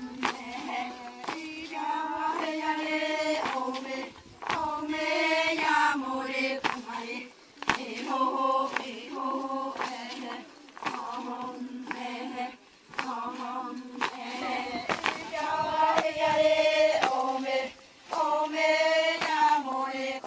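A group of women chanting in unison, in short repeated phrases of a second or two with brief breaks between them.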